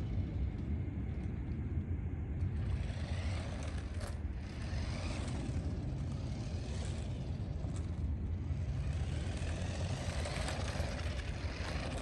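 Small electric remote-control car's motor whining up and down in pitch as it speeds up and slows on the asphalt, growing louder near the end as it comes close. A steady low rumble runs underneath.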